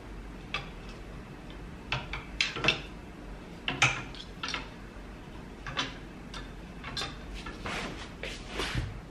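Wooden clothes hangers clacking and sliding along a clothes rail as garments are pushed aside one after another, with irregular sharp clicks and some rustling of fabric.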